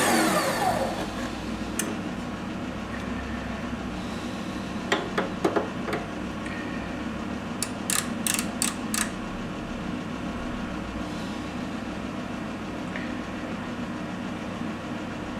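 Metal lathe switched off and spinning down, its motor pitch falling away over the first second. A low steady hum stays, with a few sharp metallic clicks and a quick run of four clicks about halfway as the lathe chuck is handled by hand.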